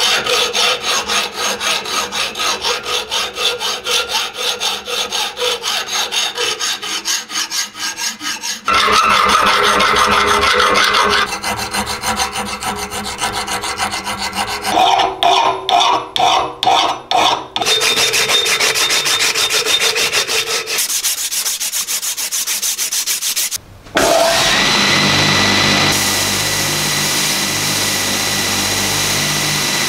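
Steel hand files rasping over a steel open-end wrench held in a vise, in repeated back-and-forth strokes across several short takes. About 24 seconds in, a belt grinder takes over, running steadily with a whine as the wrench is ground against its belt.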